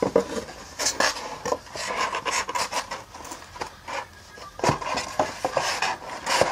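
Handling noise from a white board stair-step lipstick holder being turned and moved about on a tabletop: irregular rubbing and scraping with light knocks.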